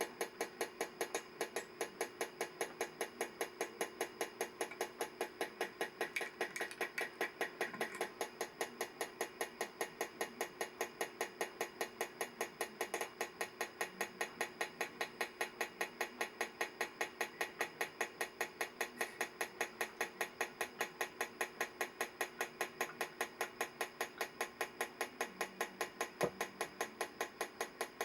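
A Bulova ladies' mechanical wristwatch ticking steadily and rapidly, several even ticks a second, heard close up: the movement running after its overhaul. A brief rustle about a quarter of the way in and one soft knock near the end.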